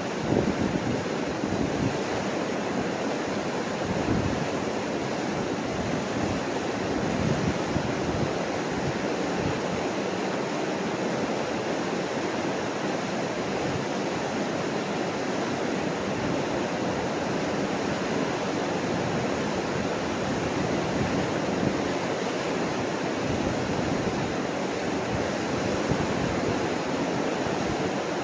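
Mississippi River white-water rapids pouring over a rocky ledge: a steady, unbroken rush of water.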